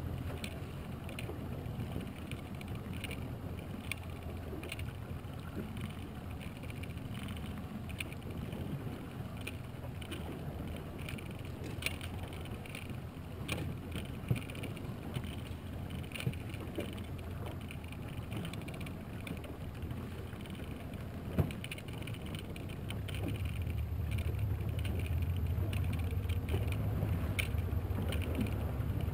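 Small outboard motor running steadily at trolling speed, a low drone under wind and water noise, with scattered small clicks and knocks from fishing tackle being handled. The drone grows louder in the last few seconds.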